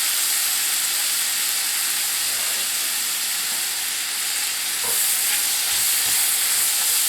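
Sausage and spice mixture sizzling in a cast iron skillet, a steady frying hiss, with a faint tick or two about five seconds in.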